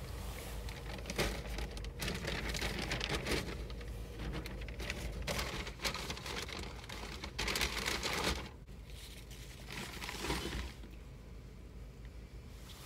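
Plastic grocery bags rustling and crinkling in irregular bursts as groceries are loaded into the car's open back, heard from inside the cabin. The handling dies down near the end.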